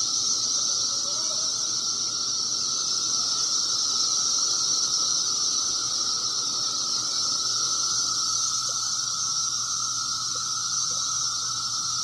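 Mass chorus of 17-year periodical cicadas humming in the trees: a loud, steady, unbroken drone at two pitches, one high and one lower.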